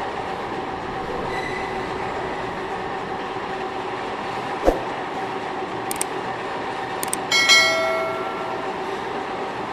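Metal-machining equipment running steadily with a hum and held tones. A sharp knock comes about halfway through, and a ringing metal clang near the end.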